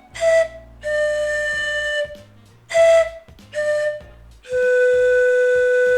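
Zampoña (Andean panpipes, malta size) playing a slow melodic phrase: five breathy blown notes, two short and two held, ending on a long lower note that stops sharply near the end.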